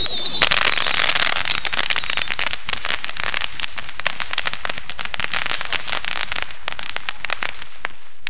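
Firework going off with a dense, rapid stream of crackles that thins out toward the end, opening with a brief high whistle.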